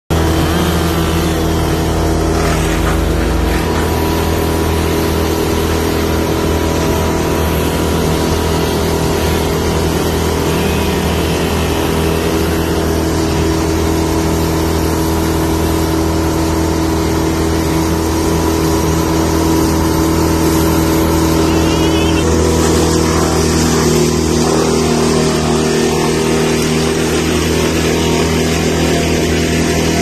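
Towed wood chipper running steadily at working speed: a loud, even engine drone with a deep hum. A brighter hiss joins about three-quarters of the way in.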